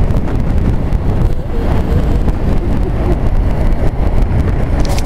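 Steady wind rumble buffeting the camera microphone, mixed with the scrape of snow tubes sliding fast over packed snow on a downhill tubing run. A few short crackles come near the end.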